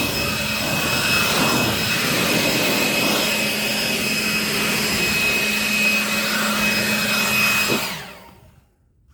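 Ryobi cordless battery leaf blower running at full speed, a loud steady rush of air with a high electric whine, then switched off and winding down to a stop near the end.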